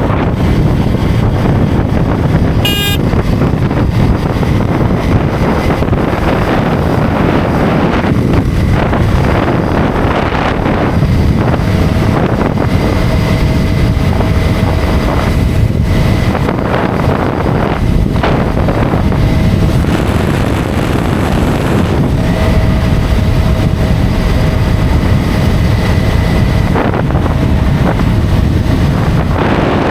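Loud wind noise buffeting the microphone over road and engine rumble from a motorcycle at highway speed. A vehicle horn sounds in two long stretches midway, and a brief high chirp comes about three seconds in.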